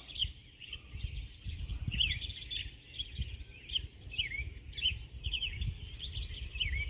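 A bird chirping over and over: short, quick notes that sweep down or up in pitch, coming in little clusters, over a low rumbling background.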